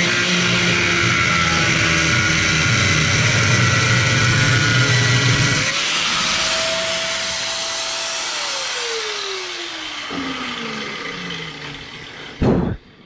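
Angle grinder cutting into aluminium framing. About six seconds in it comes off the metal and its pitch rises, then it is switched off and winds down over several seconds, falling in pitch. A short loud thump comes near the end.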